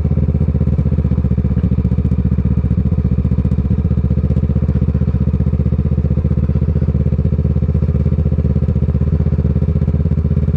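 Kawasaki ER6n's parallel-twin engine through its Scorpion aftermarket exhaust, running at steady low revs with an even, unchanging beat.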